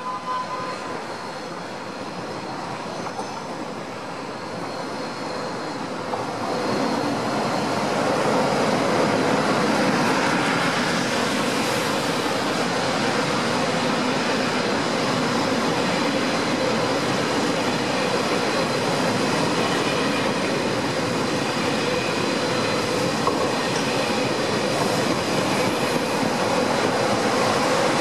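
TGV Euroduplex double-deck high-speed train passing close by: the rush of wheels on rails grows louder about six seconds in and stays loud and steady as the cars go past.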